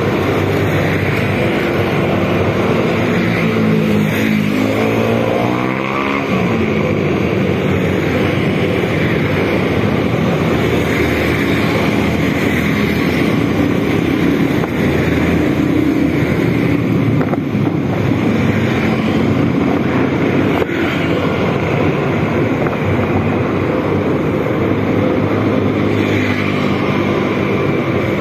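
Motorcycle engine running under way, heard from the rider's seat, with wind on the microphone. The engine note climbs in pitch about four to six seconds in.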